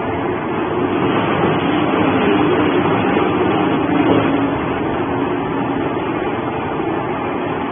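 Industrial shredder running and tearing up cardboard boxes as they are fed in: a loud, steady mechanical noise that swells a little in the middle.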